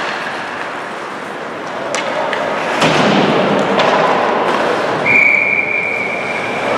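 Ice rink during a hockey game: sharp knocks and thuds over a steady crowd-and-rink din, then a single steady high whistle held for nearly two seconds, starting about five seconds in. The whistle is a referee's whistle stopping play.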